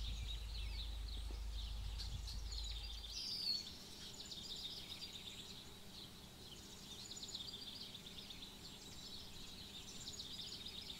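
Outdoor ambience of small birds chirping steadily, with one louder chirp about three and a half seconds in. A low wind rumble on the microphone underneath stops abruptly about three seconds in.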